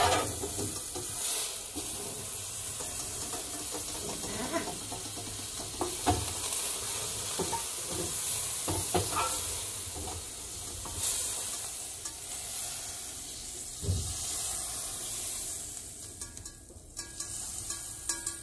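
Butter sizzling hard in a hot stainless steel frying pan, smoking and starting to burn, with a spatula scraping and knocking against the pan. The sizzle dies down near the end as the pan is lifted off the burner.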